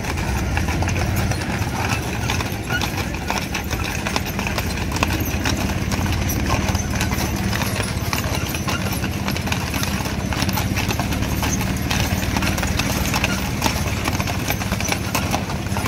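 Hooves of a team of Clydesdale draft horses clip-clopping on asphalt as they pull a wagon, many strikes overlapping in a dense, uneven patter over a steady low hum.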